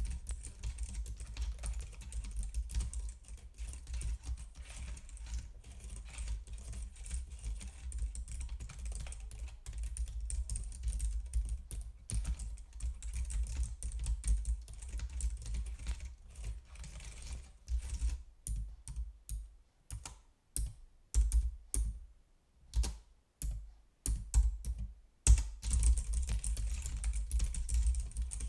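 Computer keyboard being typed on: quick, continuous key clicks that thin out to separate, spaced keystrokes for several seconds past the middle, then pick up into rapid typing again near the end.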